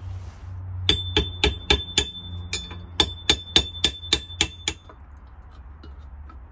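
Hammer driving a punch against a steel front strut spindle held in a bench vise: about a dozen sharp metallic blows in two quick runs with a short pause between, each with a high ring.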